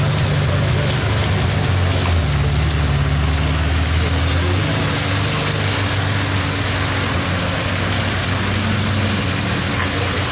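Heavy rain pouring onto wet tarmac, mixed with the low, steady running of supercar engines at low revs as the cars crawl past one after another. The engine note shifts twice in the first half as different cars go by.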